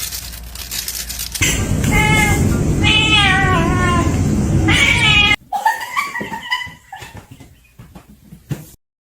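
A cat yowling in several drawn-out, wavering calls over loud noise, then, after an abrupt break, a single shorter meow.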